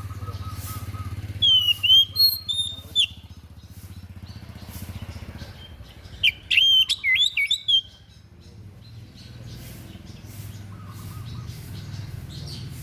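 A songbird known to keepers as 'dada putih' (white-breast) singing an unusual song in two short phrases of sharp, rapidly changing chirps and whistles, one about a second and a half in and another about six seconds in. A steady low hum runs underneath.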